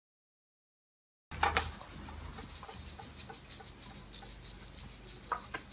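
A cat's claws rasping on a corrugated cardboard scratcher in quick repeated strokes, starting about a second in.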